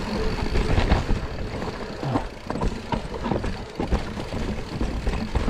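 Forbidden Dreadnought full-suspension mountain bike descending a rocky dirt trail: tyres rumbling over dirt and rock, with frequent short knocks and rattles from the bike.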